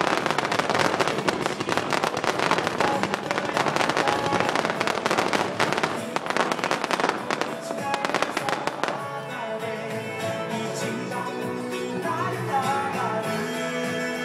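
Fireworks crackling and popping densely over loud music from a synchronized fireworks show; about nine seconds in the crackle thins out, leaving mostly the music with a melody line.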